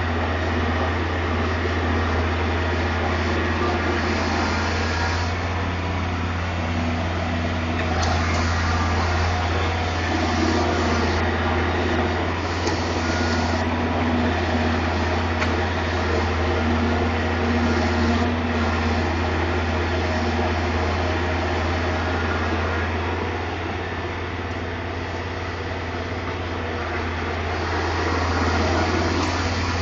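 Caterpillar 225 excavator's diesel engine running steadily, with a slight drop in level for a few seconds near the end.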